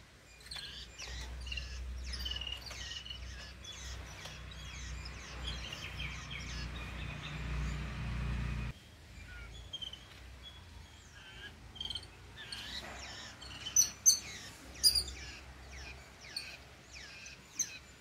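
Babblers and a Jacobin cuckoo fledgling calling: rapid, repeated short chirps, many falling quickly in pitch, with a few sharp, loud calls in the second half, as the fledgling begs the babblers for food. A low rumble runs under the first half and cuts off suddenly about halfway through.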